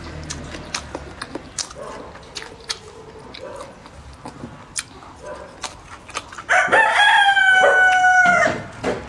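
Soft clicks of chopsticks and eating, then a rooster crows once, a loud held call of about two seconds that drops at the end, starting a little over six seconds in.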